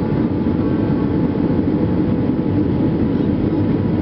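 Airliner cabin noise during the approach to landing: a steady rumble of the engines and the airflow, heaviest in the low range.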